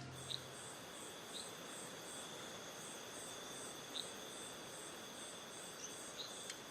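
Insects calling in chorus: steady, high-pitched trilling with a pulsing note about three times a second above it, and a few short high chirps now and then.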